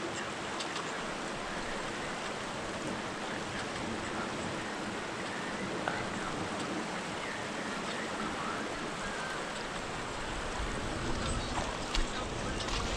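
Creek water rushing steadily through a shallow, rocky riffle, with a small faint knock near the end.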